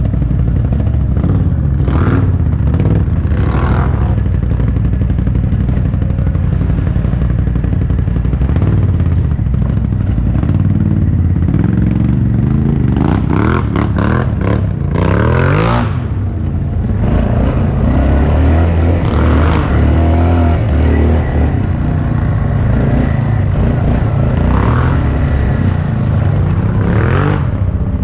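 2005 Yamaha Bruin 350 ATV's single-cylinder engine running under way, its pitch rising and falling with the throttle, with scattered clattering knocks from the machine over rough ground.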